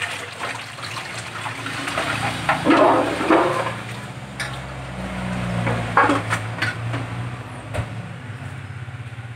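Water splashing and sloshing in a metal basin as whole carp are rinsed and lifted out, loudest about three seconds in. This is followed by a few sharp knocks as the fish are laid in a stainless steel tray.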